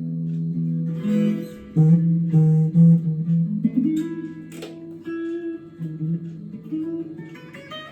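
Gear4Music LA Select strat-style electric guitar being played: strummed chords and picked notes that ring on between strokes.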